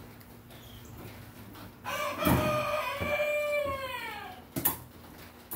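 Rooster crowing once, a cock-a-doodle-doo about two and a half seconds long whose pitch holds and then falls away at the end. A sharp knock follows near the end.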